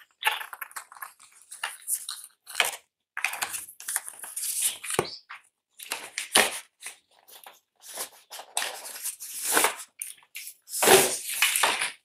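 Cardboard keyboard box being opened and the keyboard in its white wrapping slid out: irregular rustling, scraping and crinkling of the packaging with a few sharp knocks, loudest near the end.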